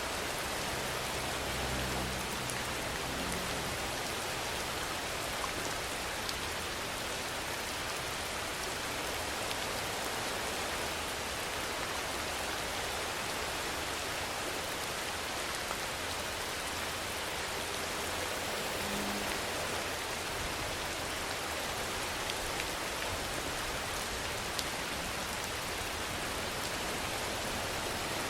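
Steady rainfall: an even hiss of rain on surfaces, with a few louder drops ticking now and then.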